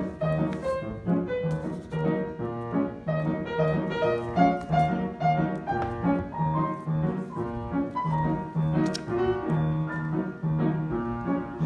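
Piano playing a jazz piece, with an even low bass note about twice a second under a moving melody.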